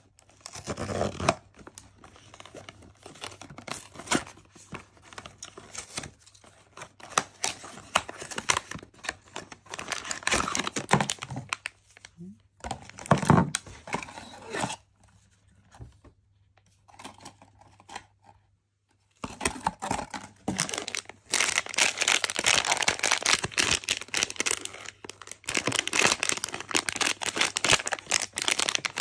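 Blind-box packaging being opened by hand: scattered cardboard scrapes and clicks, a few quiet seconds about halfway, then about ten seconds of continuous crinkling and tearing as the foil pouch is ripped open.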